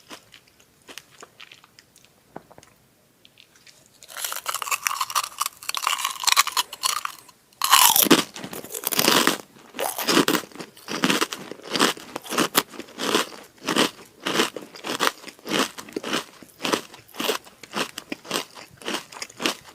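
Close-up eating of krupuk (Indonesian crackers). After a few soft seconds, loud crisp crunching starts about four seconds in, with the loudest bites around eight seconds, then steady chewing crunches about twice a second.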